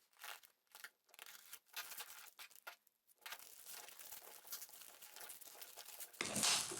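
Packaging being torn open and crinkled by hand: short scattered rustles, then continuous tearing and crinkling that gets louder near the end.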